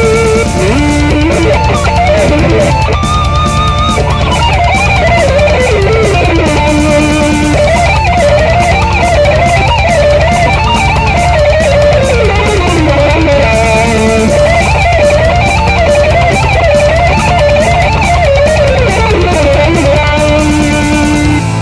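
Lead electric guitar solo, a winding melody with bent and wavering notes, over a rock band backing of bass and drums.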